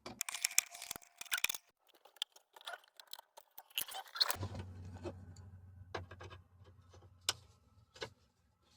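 Clicks and light metallic rattling from a flathead screwdriver turning and working loose a Jeep Cherokee XJ's headlight switch in the dash, busiest in the first second or so. A low steady hum runs through the second half.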